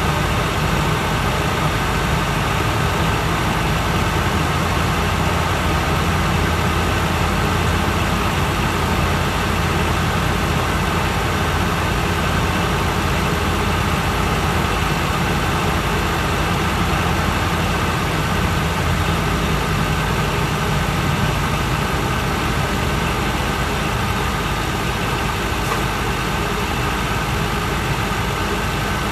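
Mitsubishi Fuso Aero King double-decker bus under way, heard from the upper deck: a steady diesel engine drone with road and tyre noise. The low drone eases a little about two-thirds of the way in.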